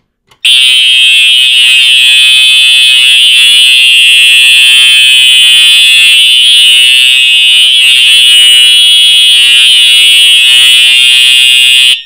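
Fire alarm horn sounding one steady, loud, buzzing tone after a pull station has been pulled: the system is in alarm. It starts about half a second in and cuts off abruptly at the end.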